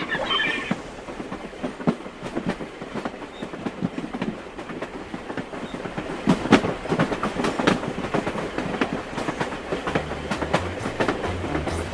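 Train wheels clattering over rail joints: the clickety-clack of a moving railway carriage, a run of uneven knocks. Low bass notes come in near the end.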